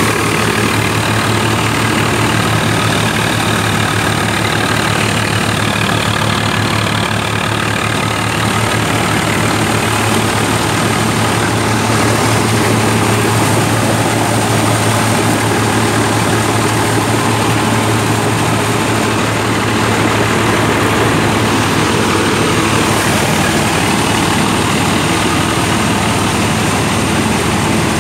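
Tractor-drawn straw reaper at work: the tractor's engine running steadily under load together with the PTO-driven reaper's reel, cutter and threshing drum. A constant deep hum under a dense, even machine noise.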